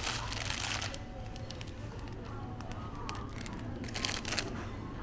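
Plastic bread bag crinkling in short bursts of crackle as a wrapped baguette is handled, over a steady low hum of store background.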